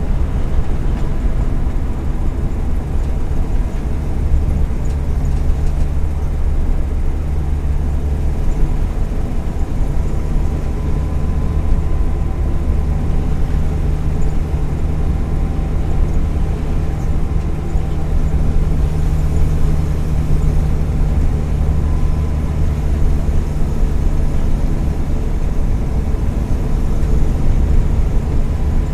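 Volkswagen Kombi's 1.4-litre EA111 four-cylinder engine running steadily at road speed, a constant low drone with a faint steady whine. The engine has worn spark plug leads and ignition coil, and an exhaust manifold that the owner believes is probably cracked.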